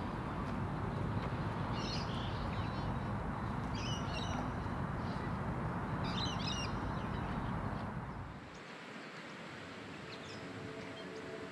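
Short, chirpy bird calls repeating every second or two over a steady low outdoor rumble. The rumble drops away about eight seconds in, and soft music with held tones comes in near the end.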